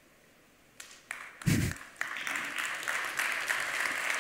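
Near quiet at first, then scattered first claps and a short low thud about one and a half seconds in, before a hall audience breaks into steady applause that keeps going.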